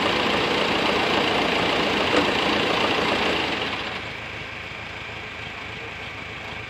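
Tractor diesel engine running steadily, dropping noticeably quieter about four seconds in, with one brief sharp knock about two seconds in.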